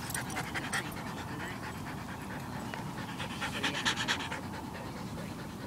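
A dog panting hard and fast close to the microphone, in quick rhythmic breaths that come in two spells, the second, about three to four seconds in, the louder.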